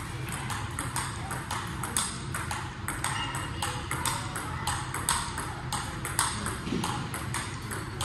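Table tennis rally: the ball clicks on the paddles and the table in quick, even succession, about three to four hits a second. A steady low hum sits underneath.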